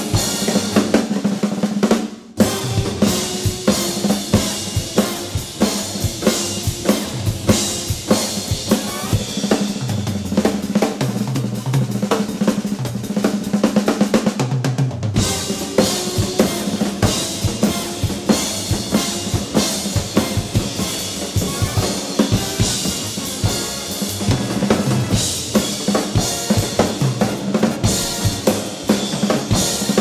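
Drum kit played hard in swing style: snare hits and fills, bass drum and crashing cymbals, over a swing big-band recording with sustained horn and bass tones. There is a brief stop about two seconds in, and the sound falls away at the very end as the tune finishes.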